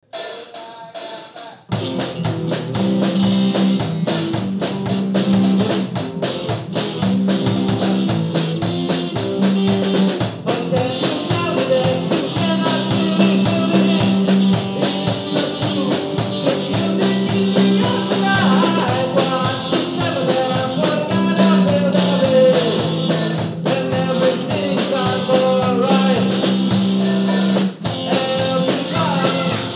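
Rock band playing live: drum kit, electric bass and acoustic guitar, with a man singing lead. The full band comes in about two seconds in after a short, quieter opening.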